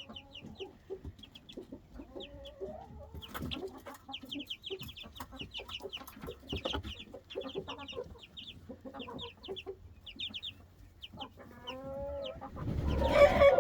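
Three-week-old chicks peeping, a steady run of short high notes, with lower clucking calls mixed in and a louder call near the end.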